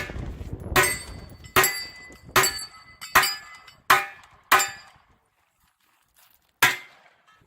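Pistol shots in steady rhythm, about one every 0.8 seconds, each with a short ringing tail. After seven shots there is a two-second pause, then one more shot near the end.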